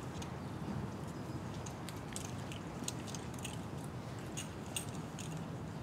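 Light, irregular clinks and clicks of climbing hardware on an arborist's harness as he handles his rope and moves, over a steady low outdoor background hum.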